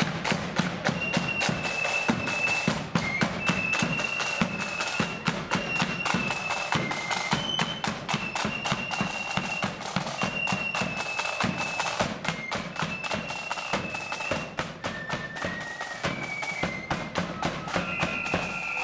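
Marching blood-and-thunder flute band playing: a melody in high held notes on flutes over rapid side-drum strokes and bass drum beats.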